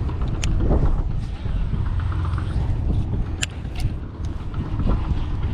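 Strong wind buffeting the microphone: a loud, steady low rumble, with a few sharp clicks through it.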